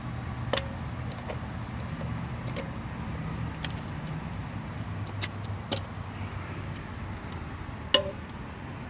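Several short, sharp metallic clicks and clinks from small tools or parts being handled at a car wheel, the loudest near the end. A steady low hum runs underneath.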